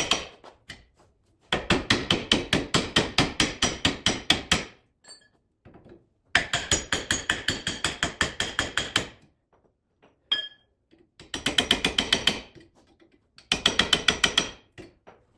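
Metal being hammered with rapid, evenly spaced blows, about six a second, in four runs of one to three seconds with short pauses between.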